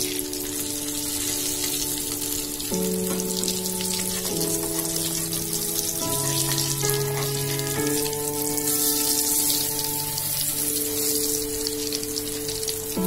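Besan-battered bread pakoras shallow-frying in hot oil in a wok, a steady sizzle full of fine crackles. Soft background music of sustained keyboard chords plays under it, changing chord every second or two.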